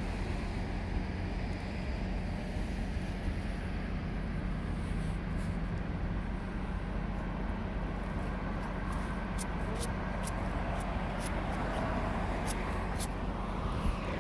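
Steady low machinery drone from a berthed offshore supply ship, its onboard engines or generators running, with a constant hum. A scatter of faint sharp ticks joins in from about five seconds in.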